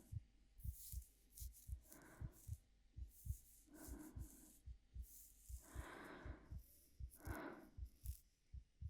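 Quiet heartbeat, low double thumps in a steady rhythm, under soft breaths about every two seconds and light rustling of hair being stroked.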